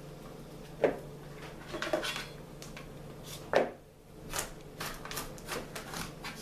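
Kitchen handling sounds: a few sharp knocks of utensils and dishes, the loudest about three and a half seconds in, then a steady run of knife taps on a cutting board, about three a second, as vegetables are chopped. A steady low hum sits underneath.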